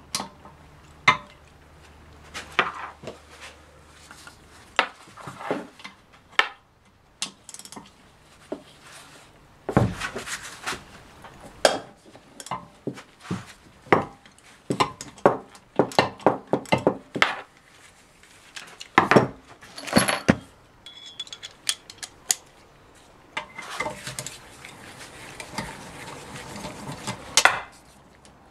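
Metal hand tools clinking and knocking against the aluminium case of a Ford 5R55S automatic transmission in irregular sharp strokes, as a socket and long extension are fitted to the extension-housing bolts. Near the end comes a run of fast fine clicking.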